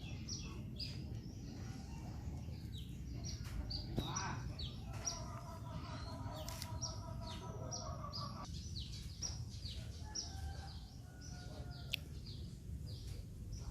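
Khmer kite noise strings (ek) humming in the wind, a wavering set of steady tones that rises in about five seconds in and stops abruptly a few seconds later, over wind rumble. Short falling bird chirps repeat about twice a second throughout.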